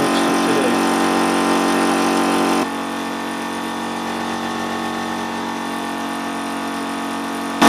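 New Warrior high-pressure air compressor running steadily while it pumps a carbon-fibre air tank up from about 190 toward 285 bar. The sound gets a little quieter about three seconds in.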